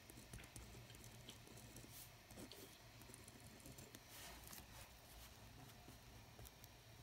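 Faint scratching of a pen writing on lined notebook paper, in short strokes with small clicks, over a low steady hum.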